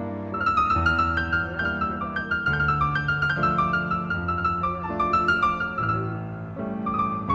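Background piano music: a quick line of short high notes over held low chords.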